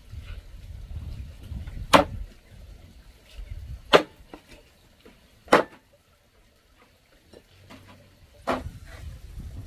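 Large knife chopping cooked chicken on a round wooden chopping block: four sharp chops spaced about one and a half to three seconds apart, with lighter taps of the blade between them.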